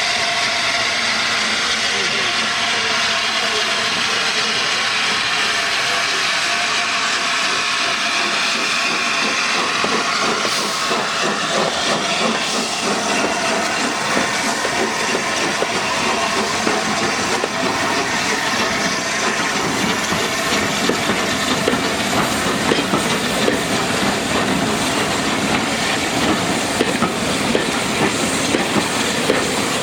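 Steam locomotive 60163 Tornado, a three-cylinder A1 Pacific, hissing steam as it works its train, with clicking over the rails growing louder in the second half.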